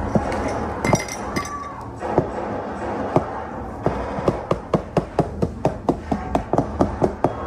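A spoon or utensil knocking against a mixing bowl while stirring: a few scattered knocks at first, then a quick, even run of about four to five clacks a second for the last few seconds.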